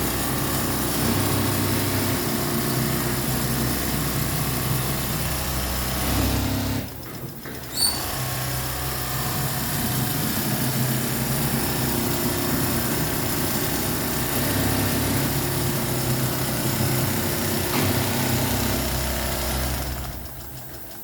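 Sewing machine running at speed, stitching upholstery fabric. It pauses briefly about seven seconds in, starts again, and stops near the end.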